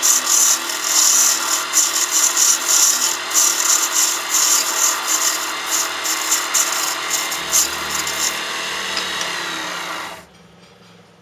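Sanding a spinning wood blank on a lathe: a hand-held abrasive pad hisses and rasps against the wood in short repeated strokes over the lathe's hum. The strokes stop about eight seconds in, and the sound cuts off suddenly about two seconds later.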